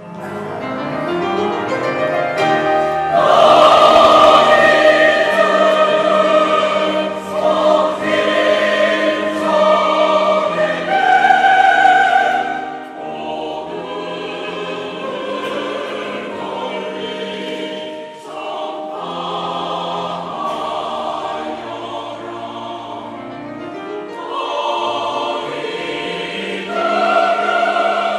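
Mixed church choir singing a choral anthem, with grand piano accompaniment. A loud passage runs from about three seconds in to about twelve, then the singing softens, and it swells again near the end.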